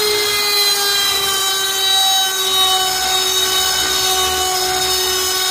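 Small Harbor Freight router on an MPCNC machine running at speed, its two-flute upcut bit cutting aluminum. A loud, steady whine that drops slowly and slightly in pitch as the bit takes the load.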